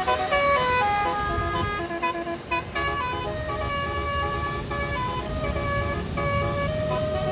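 A bus's telolet basuri multi-note horn playing a quick melody, note after note at changing pitches, with the bus engine running underneath.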